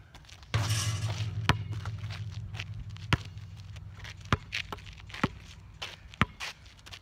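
A basketball shot strikes the hoop's metal backboard and rim with a sudden low clang that rings and fades over a couple of seconds. Then the ball bounces on the asphalt, several sharp single bounces about a second apart.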